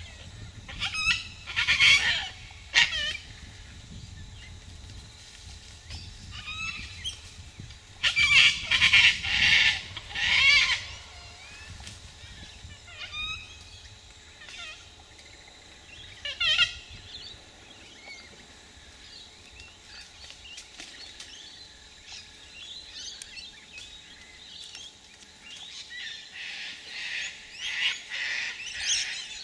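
Sulphur-crested cockatoos screeching: harsh calls in bunches, loudest a couple of seconds in, around a third of the way through and in a run near the end, with fainter calls in between.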